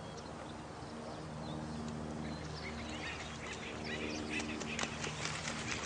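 Nature soundscape of many birds chirping and calling, the calls growing busier after about two seconds, over a steady low drone.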